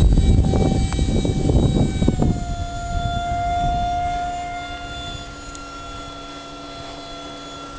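Electric ducted-fan motor of a Kyosho Panavia Tornado EDF-55 model jet whining with a rush of air. A little over two seconds in the whine drops slightly in pitch and grows quieter, then holds steady.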